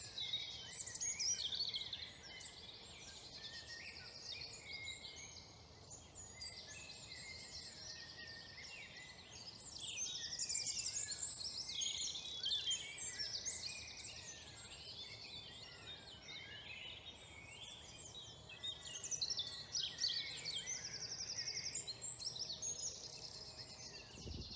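Woodland dawn chorus: many songbirds singing at once, their songs and calls overlapping and answering one another, with some stretches busier than others.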